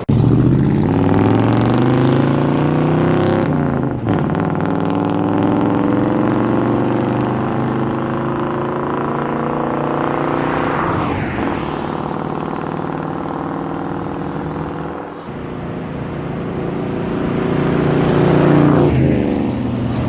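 1995 GMC K1500 pickup's V8 engine pulling hard through the gears of its manual transmission: the revs climb steadily, drop sharply at each upshift about 4, 11 and 15 seconds in, then climb again and ease off near the end.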